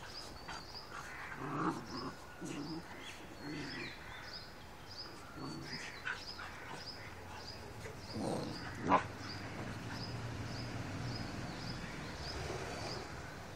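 Dogs, a Rottweiler and a cocker spaniel, making short vocal bursts, with one sharp loud sound about nine seconds in. A faint high chirp repeats about twice a second throughout.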